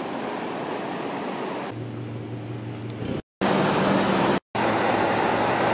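Steady rushing outdoor noise, then the diesel engine of an Akita Nairiku Railway railcar idling at the platform with a steady low hum. The sound cuts out twice for a moment.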